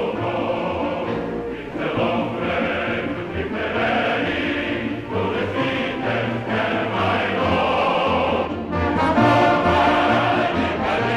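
Film score with a choir singing slow, sustained chords over orchestral accompaniment.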